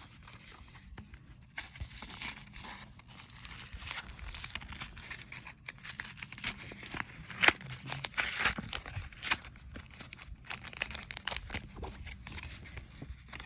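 A Yu-Gi-Oh booster pack's wrapper crinkling and being torn open by hand, with irregular crackles that get busier and louder midway through.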